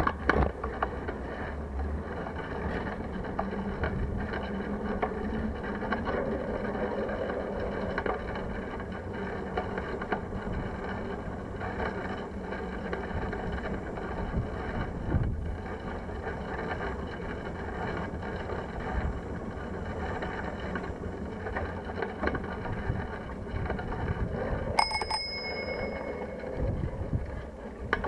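A bicycle rolls along a paved path and footbridge with a steady rumble and frequent small rattles from the frame and handlebar mount. Near the end a bicycle bell rings, its tone dying away over about a second.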